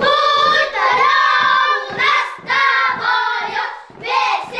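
A group of young boys singing a song together, loud, with long held notes.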